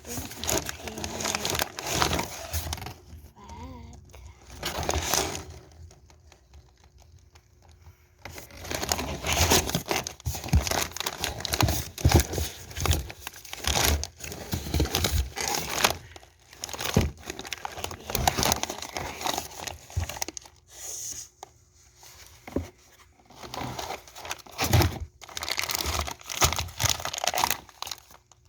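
Packaging being unwrapped by hand: wrapping crinkling and tearing in irregular bursts, with a few quieter pauses, as a box of meat is unpacked.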